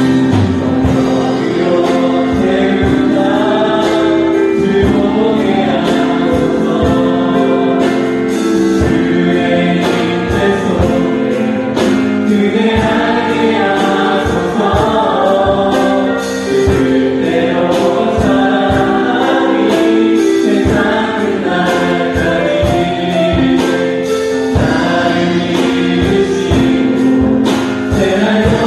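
Live praise band playing a worship song: several women's voices singing together into microphones, over sustained electronic keyboard chords and a drum kit keeping a steady beat.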